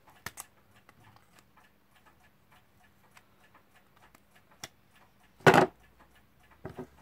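Light metallic clicks and ticks from pliers working a small nut off the movement of an Emes wall clock, with one louder, brief clatter about five and a half seconds in.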